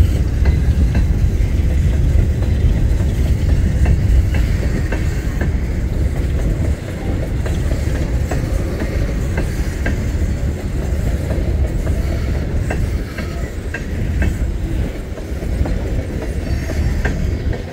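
Empty Union Pacific open-top coal cars rolling past on the rails: a steady low rumble with the wheels clicking over the rail joints.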